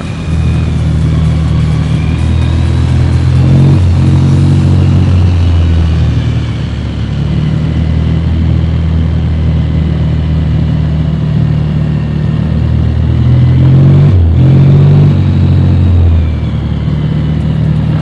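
ATV engine running under throttle, its pitch shifting up and down several times.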